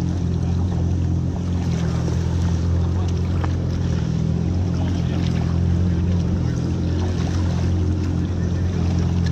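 Jet ski engine idling steadily, a low, even hum with no change in revs.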